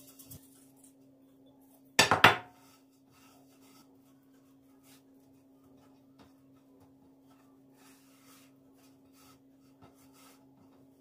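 A brief clatter of a few quick knocks from hard objects such as dishes or utensils, about two seconds in. Faint small ticks and a steady low hum follow.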